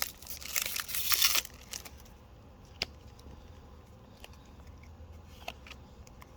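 Foil wrapper of a Pokémon Chilling Reign booster pack crinkling and tearing as it is opened, loudest in the first second and a half, then quieter handling with a few light ticks.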